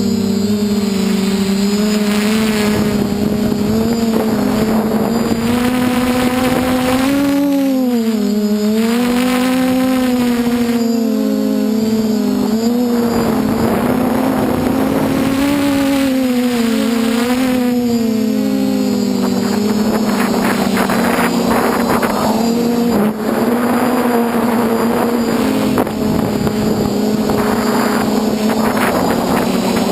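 DJI F450 quadcopter's four electric motors and 8-inch propellers whining, heard close up from the craft itself. The pitch holds steady, then rises and dips repeatedly through the middle as the throttle changes, before settling again near the end.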